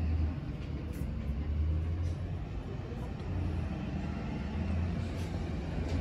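Low rumble of wind and handling noise on a handheld phone microphone, rising and falling, with a few faint clicks.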